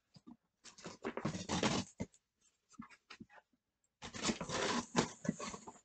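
A cardboard shipping box being torn open by hand: two long ripping noises of tape and cardboard, with small clicks and knocks of the box being handled between them.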